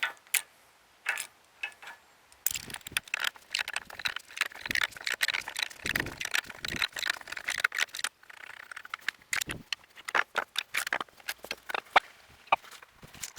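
Metal hand tools clinking and clattering as they are handled: many sharp, irregular clicks and knocks, thickest in the middle.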